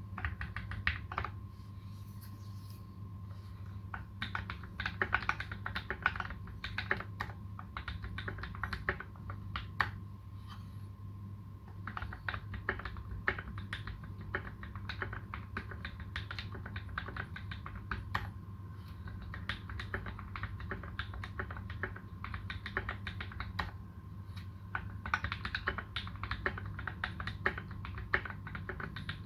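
Typing on a Space65 custom mechanical keyboard with modded Tealios v2 linear switches and PBT keycaps: a fast, uneven run of keystrokes with short pauses.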